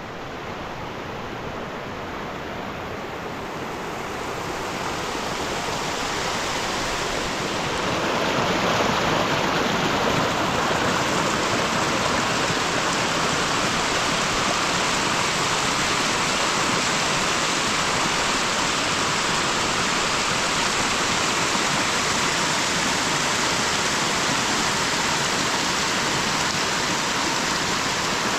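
Heavy rain falling, a steady rushing hiss that swells over the first several seconds and then holds steady.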